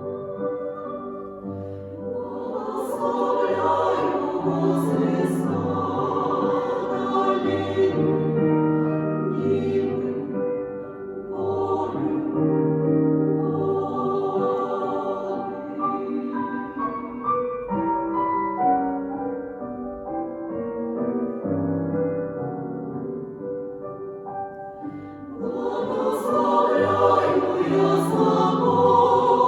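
Women's choir singing a slow romance in several parts, over piano accompaniment with steady low bass notes. The singing swells louder about two seconds in, eases through the middle, and swells again near the end.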